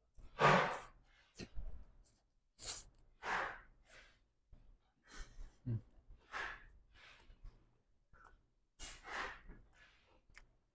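A man chewing a mouthful of burger with his mouth closed, breathing noisily through his nose in short breaths every second or so.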